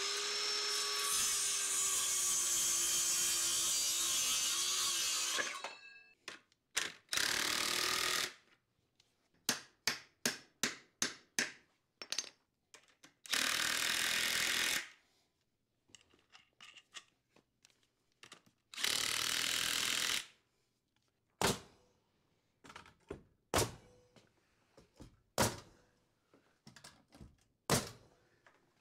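A circular saw cuts through a wooden bottom plate for about five seconds and winds down. Then an impact driver drives fasteners into the plate in three short bursts, with a run of quick clicks between them. Near the end a pneumatic framing nailer fires several sharp single shots about two seconds apart.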